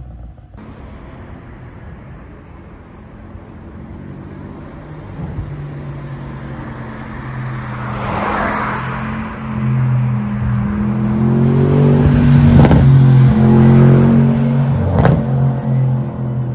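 Mercedes-AMG GT63 S twin-turbo V8 with an ECU pop tune, its exhaust note building and rising in pitch over several seconds. Two sharp exhaust cracks come in the last few seconds.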